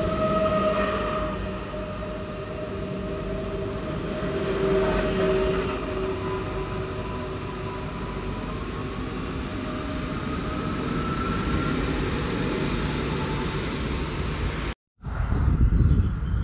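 Electric train running past, its steady rail noise carrying several whining tones, one of which rises slowly in pitch partway through. Near the end the sound cuts off abruptly and gives way to wind buffeting the microphone.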